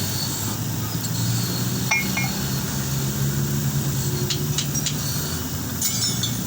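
A few light metallic clinks and taps, in small clusters about two seconds in, around four and a half seconds in and near the end, over a steady low hum.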